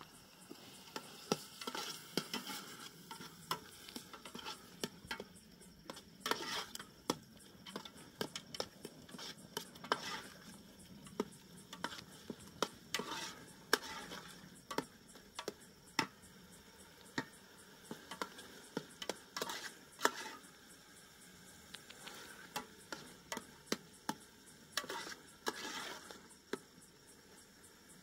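Metal ladle stirring food in a metal cooking pot, with irregular clinks and scrapes against the pot's sides and rim.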